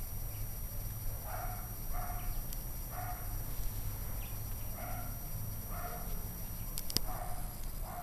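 A dog barking: a series of short, moderately faint barks, roughly one a second, with a couple of sharp clicks about seven seconds in.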